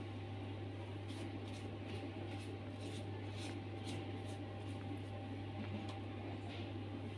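Faint soft strokes of a silicone pastry brush dabbing egg wash onto raw bread dough, about two a second, over a steady low hum.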